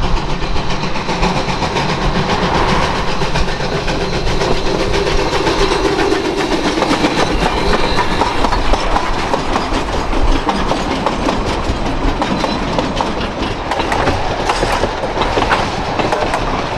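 Narrow-gauge steam locomotive, former Alaska Railroad 152, working along the track with a long passenger train: a steady, loud mix of steam exhaust and clattering wheels on the rails.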